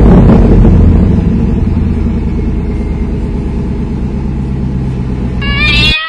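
A car engine runs loud and steady just after revving up, easing slightly in level, and is cut off near the end by a high wavering cry.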